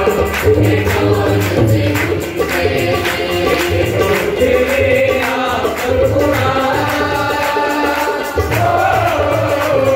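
Live Punjabi devotional song: a man singing to his own harmonium accompaniment, with tabla strokes and hand clapping keeping a steady rhythm.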